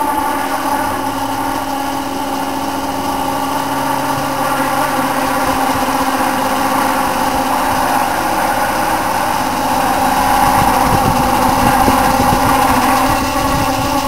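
Vintage Dominion box fan running loudly on worn-out motor bearings, giving a steady whine of several tones, with rattling and knocking setting in about ten seconds in.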